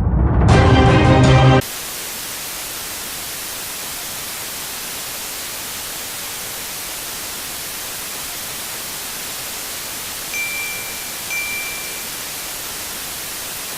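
A brief loud burst of music that cuts off abruptly about a second and a half in, then a steady hiss of static for the rest. Two faint high beeps come through the hiss, about ten and eleven seconds in.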